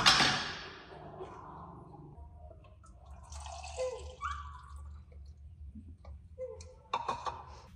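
Warm milk being poured into a feeding bottle: a short pour right at the start that fades over about a second and a half, followed by quieter small handling sounds.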